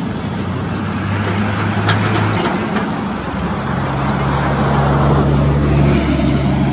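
Road traffic passing, with a diesel locomotive's low engine drone underneath that steps up in pitch about three and a half seconds in.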